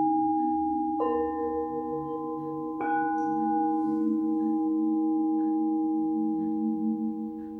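Singing bowls struck twice, about two seconds apart, their layered ringing tones sustaining, overlapping and slowly fading.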